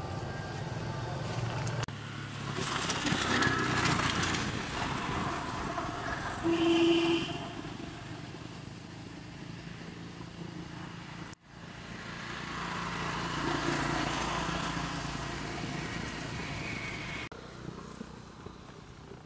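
Engine noise of passing motor traffic, swelling and fading twice, with a short higher-pitched sound about seven seconds in. The sound drops out for an instant about eleven seconds in.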